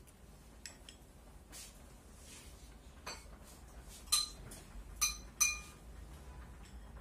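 Chopsticks or a spoon clinking against porcelain rice bowls during a meal: a few soft taps, then three sharp clinks with a brief high ring, about four and five seconds in.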